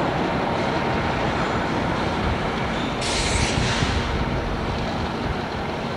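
Diesel locomotives of a multi-unit Burlington Northern consist running as they move past at low speed, a steady low engine sound. About three seconds in, a sharp hiss lasts for about a second.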